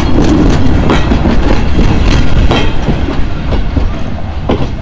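Old ČSD passenger coaches of a steam-hauled train rolling past close by: a steady rumble with irregular sharp wheel clacks. The sound fades over the second half as the last coach passes and the train moves away.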